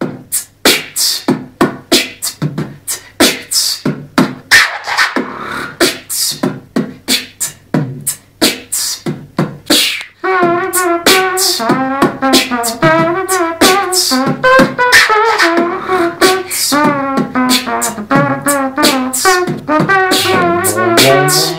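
Layered beatboxing: a mouth-made drum beat of sharp kicks and snares, joined about halfway by a mouth-imitated trumpet melody with a wavering pitch, and near the end by a low mouth-made bass line.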